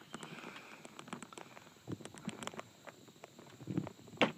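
Scattered light taps and clicks with a few dull knocks, and one sharper knock near the end, from handling a landed musky in a landing net against the side of the boat.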